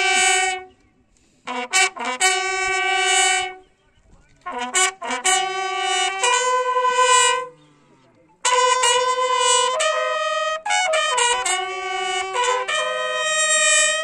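Military bugle call played in phrases: quick short notes lead into long held notes, with brief pauses about a second in, about four seconds in and about eight seconds in. It is the call sounded for the guard-of-honour salute at a soldier's funeral.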